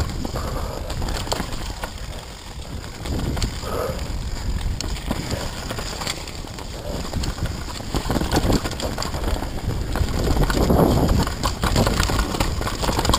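Downhill mountain bike descending a dirt forest track at speed: wind rushing on the microphone, tyres on loose dirt, and the chain and frame rattling and clattering over roots and bumps. It gets louder about eight seconds in and again near the end.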